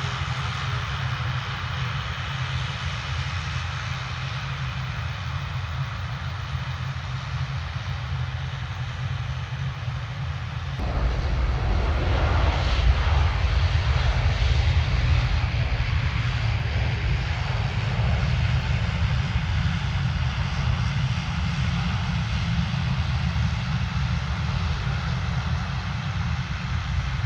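Airliner engines running, with a steady rush of noise over a heavy low rumble. About eleven seconds in, the rumble jumps suddenly louder and fuller.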